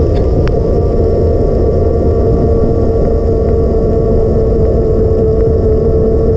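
Steady rush of wind and wet-road noise on the camera of a bicycle riding in the rain, with a constant hum running through it. There are a couple of light ticks about half a second in.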